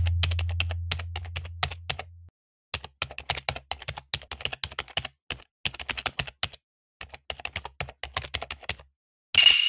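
Rapid clicks of a computer-keyboard typing sound effect, in runs of a few seconds with short pauses. A low sound dies away over the first two seconds, and a bright chime rings near the end.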